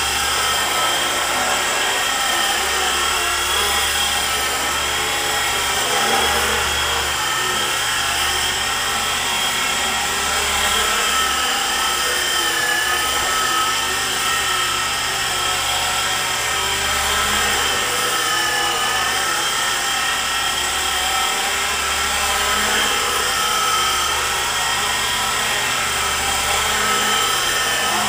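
E-flite SR120 micro RC helicopter in a scale Bell 412 fuselage in hovering flight: a steady whine from its electric motors and spinning rotors, the pitch wavering slightly up and down as throttle and tail rotor are worked.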